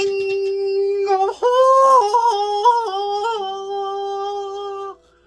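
A single voice singing one long held 'ah' note. It steps up in pitch about a second and a half in, wavers through a few small shifts, then settles back down and cuts off sharply near the end.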